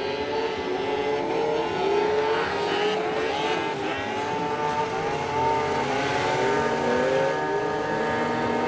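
Snowmobile engines running and revving, more than one at once, their pitches rising and falling and overlapping.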